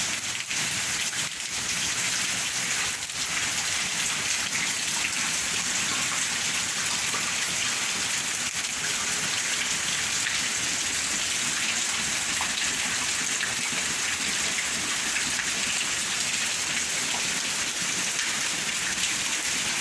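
Steady heavy rain pouring down, an even hiss of drops falling on the ground.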